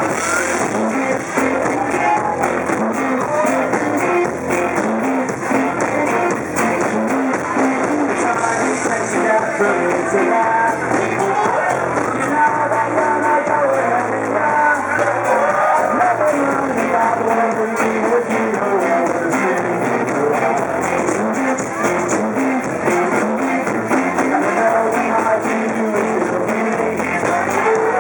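Live rock band playing a song with a sung lead vocal over guitars, steady and loud throughout.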